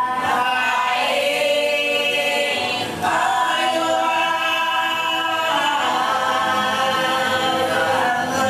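Several voices singing an Afro-Colombian alabao, the funeral chant of Chocó sung so the dead can pass to heaven. It is unaccompanied, in long held notes, with a new phrase beginning about three seconds in.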